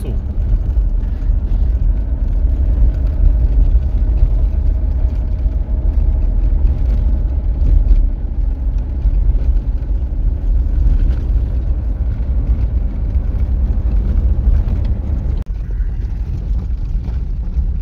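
Diesel car on the move: steady low engine and road rumble, easing slightly about three seconds before the end.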